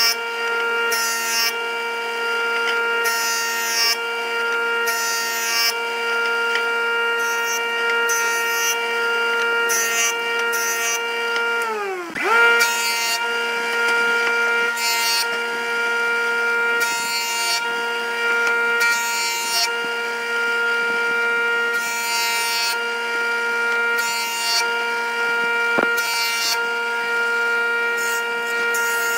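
Wood lathe motor running with a steady whine while a cutting tool scrapes the spinning wood in short repeated passes. About twelve seconds in the motor's pitch drops sharply and comes straight back up.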